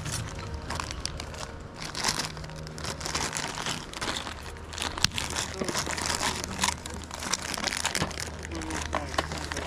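Thin plastic bag crinkling and rustling as it is handled and opened by hand, with one sharp click about halfway through.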